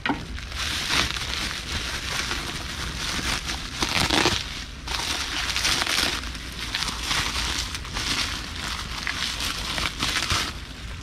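Bubble wrap crinkling and rustling in irregular surges as hands pull it apart to unwrap a small bonsai pot, with scattered sharp clicks.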